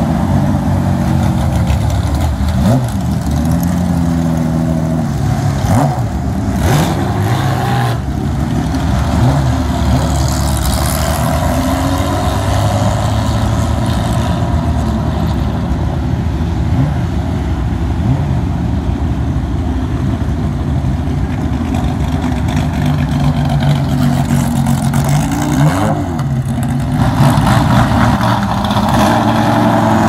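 Vintage race car engines running at low speed with throttle blips that send the pitch up and down. A Jaguar E-type's straight-six passes early on. The engine sound grows louder near the end as a 1960s Corvette Sting Ray race car's V8 rolls up.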